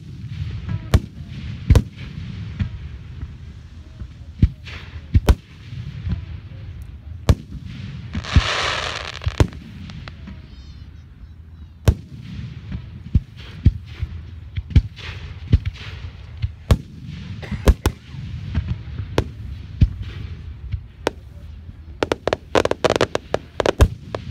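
Aerial fireworks shells launching and bursting overhead: a steady run of sharp booms and bangs with a low rolling rumble between them. Near the end comes a quick flurry of many pops close together.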